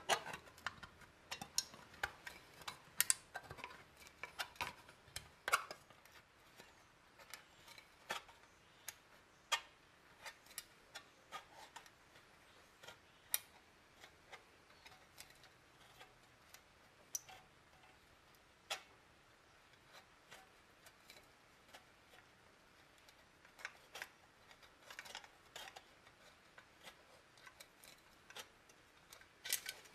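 Tin snips cutting into a thin steel can, with irregular sharp snips and clicks in clusters and short pauses between cuts.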